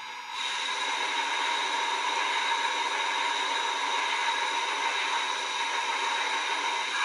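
Steady hiss from the MTH RailKing Imperial Union Pacific Big Boy model steam locomotive's onboard sound system, setting in about half a second in and holding level.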